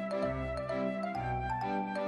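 Background music: a gentle instrumental tune with sustained melody notes over a bass line that changes note about every half second.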